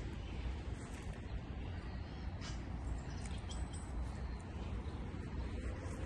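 A few faint, short, high bird calls, about two and a half and three and a half seconds in, over a steady low rumble.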